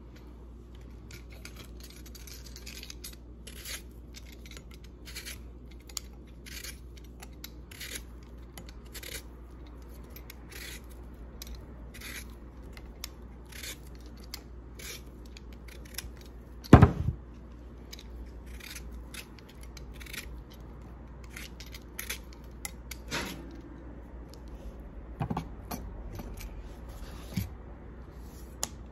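Vegetable peeler scraping the skin off a potato in short strokes, roughly one a second. One loud knock on the cutting board a little past halfway.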